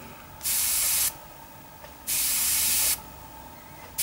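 Iwata HP-M1 single-action airbrush test-spraying acrylic primer: two short hisses of air and paint, about a second apart.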